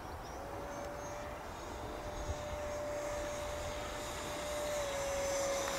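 Electric ducted fan of an Arrows Hobby BAE Hawk model jet whining in flight: one steady tone that dips slightly in pitch about five seconds in and grows louder toward the end, over low wind rumble.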